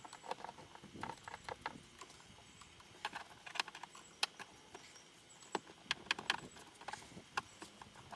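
Irregular light clicks and taps of hand tools and parts being worked on a jet ski engine's carburetors, undoing the choke linkage.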